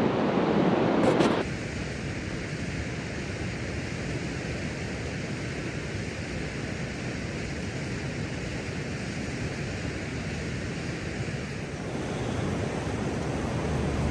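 Steady rush of flowing river water, louder for the first second and a half.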